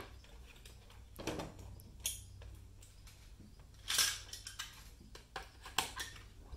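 Light metal clinks and clicks as aluminium rivets, backing washers and a hand rivet gun are handled against a stainless steel bracket on a plastic snow flap. There are a handful of separate sharp clicks, the loudest about four seconds in.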